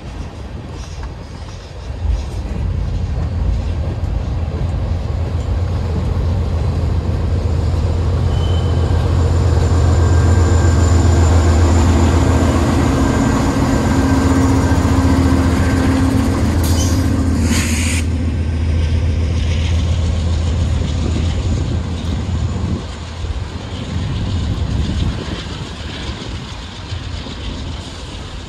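Freight train passing at close range: rolling freight cars with a mid-train Norfolk Southern diesel locomotive, whose low engine drone grows louder as it comes by and then fades. A brief hiss sounds about two-thirds of the way through.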